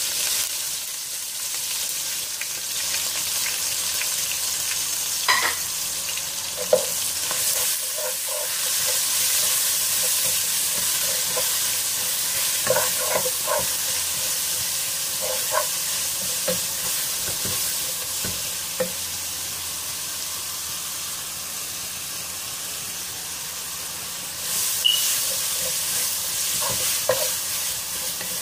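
Sliced onion, carrot and green onion sizzling in hot oil in a nonstick pot, with a steady hiss. A wooden spatula stirs them, scraping and knocking against the pot now and then.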